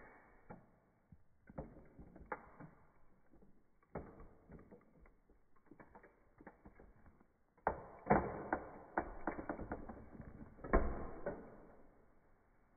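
Toy model car creaking, clicking and cracking as a high-heeled shoe presses down and crushes its roof, with louder cracking about eight and eleven seconds in before it goes quiet near the end.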